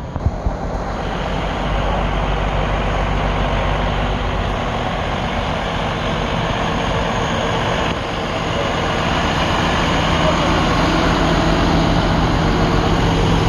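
MAN TGS 26.400 truck's diesel engine running steadily at raised revs, driving the hydraulics of its Palfinger PK 50002 loader crane. It gets louder about two seconds in and again after about eight seconds.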